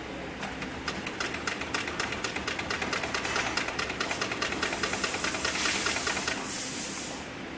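Heavy-duty HIGHTEX industrial sewing machine stitching thick layers of webbing sling: a rapid, even clatter of needle strokes over the hum of its belt-driven motor. It picks up speed and grows louder, then stops near the end.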